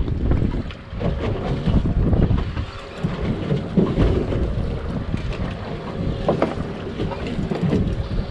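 Wind buffeting the microphone in uneven gusts over the slosh of open-sea water around a small boat.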